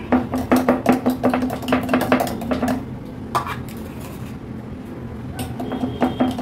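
A kitchen knife scraping and tapping mango pulp out of a stainless-steel mixer-grinder jar: a quick run of clicks and scrapes for about three seconds, a single tap a little later, and more scraping near the end.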